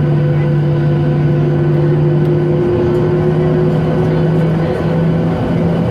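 Jet engines of a Boeing 737 airliner heard inside the cabin while taxiing: a steady engine hum of several held tones over a rushing drone.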